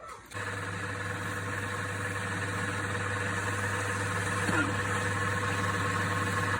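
Wood lathe's electric motor running at a steady speed, a constant low hum with a few steady higher tones over it, starting abruptly just after the start.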